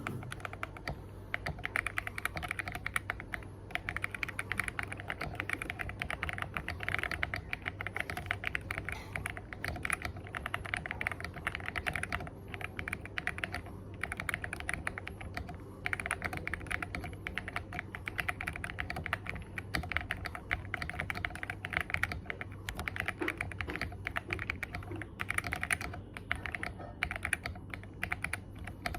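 Computer keyboard being typed on quickly, a dense run of key clicks in bursts of a few seconds with short pauses between them.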